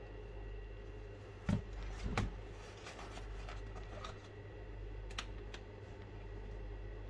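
Two dull knocks about two-thirds of a second apart as a tablet is set down face-down on its cardboard box, then a few light clicks of handling; a steady low hum runs underneath.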